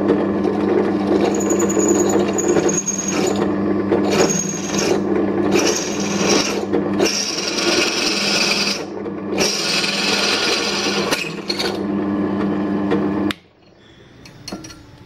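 Bench drill press running with a steady motor hum while its bit cuts into a small workpiece, in about five cutting bursts of one to two seconds each. The motor cuts off suddenly about 13 seconds in.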